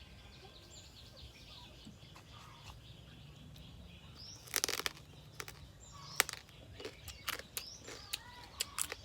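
Birds chirp faintly over a low outdoor background. About halfway through, a string of sharp, irregular crunches and cracks starts: the crisp shell of deep-fried stone crab being broken and bitten.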